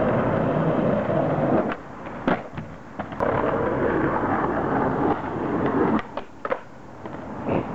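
Skateboard wheels rolling on pavement, interrupted by sharp board clacks about two seconds in, then rolling again, and a pop with landing clacks around six seconds in as a trick is tried near a bench.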